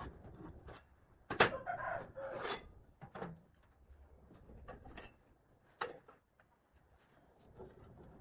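Metal square-tube frames knocked and set down on a workbench: a sharp clank about a second and a half in, and lighter knocks near three and six seconds. Just after the first clank a rooster crows briefly.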